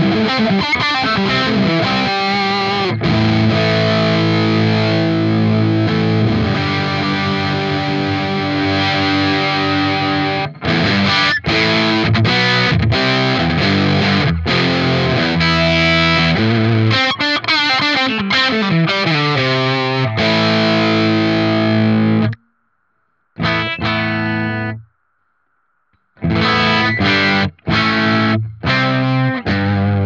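Electric guitar played through a TC Electronic Vintage Distortion, a RAT-circuit distortion pedal, with its boost switched on for a traditional RAT distortion tone. It plays sustained distorted chords that cut off suddenly about two-thirds of the way in. After a short burst and a pause, choppy stop-start chords follow near the end.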